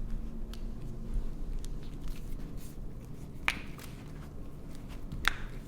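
Foot joints cracking under a chiropractic adjustment: two sharp pops about two seconds apart, the second the louder, over soft handling sounds.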